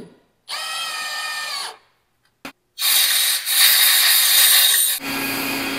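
A power tool whines briefly, speeding up, as the undercarriage bolt hole is cleaned out. Then compressed air hisses loudly into the hole from an air hose, and a steady low hum joins it near the end.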